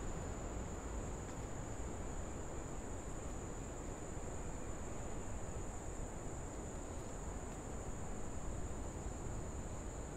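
Insect chorus: one unbroken high-pitched trill, over a faint background hiss.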